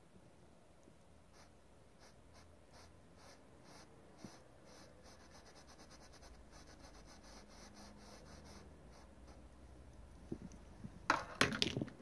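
Faint scratchy strokes of an oil paintbrush on canvas, repeating a few times a second. Near the end come a few louder knocks and rustles of things being handled.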